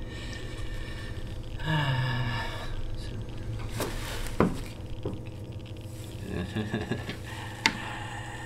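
A man's low grunt falling in pitch, then a few sharp knocks on a tabletop, and near the end a wooden chess piece set down on the board with a click, over a steady low hum.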